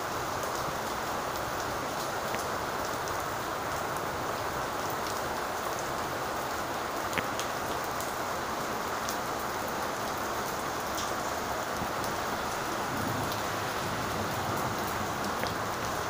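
Steady rain falling on wet ground, with a few sharp single drips close by.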